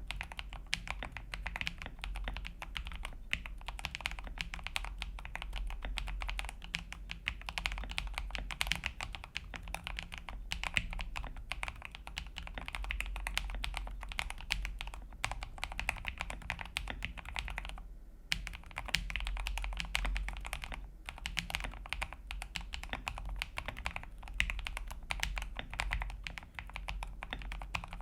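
Typing on an Akko PC75B plastic 75% mechanical keyboard with linear switches: a fast, continuous run of keystrokes with two brief pauses about two-thirds of the way through. The keyboard is tape-modded, with electrical tape along the top of the plate and two layers of tape on the PCB, to cut the plasticky noise of the plate touching the top case.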